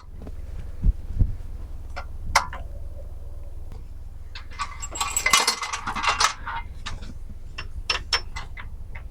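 Metal mooring gear clinking and rattling: a few separate clinks, then a longer rattle about five seconds in and more clinks near the end, over a low rumble of wind on the microphone.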